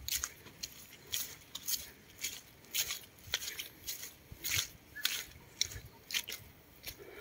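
Footsteps swishing and crunching through grass and dry fallen leaves at a steady walking pace.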